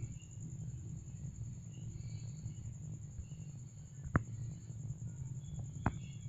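Crickets trilling steadily at a high pitch over a low rumble, with two sharp clicks about four and six seconds in.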